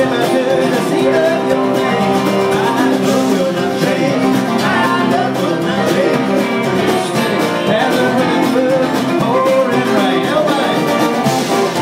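Bluegrass music played on acoustic string instruments, with an upright bass plucked underneath.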